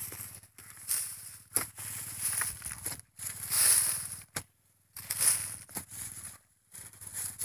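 A wooden-handled digging tool jabbing and scraping into dry, clumpy paddy soil to dig out a rice-field crab burrow, clods crunching and breaking apart in a series of irregular strokes with short pauses between them.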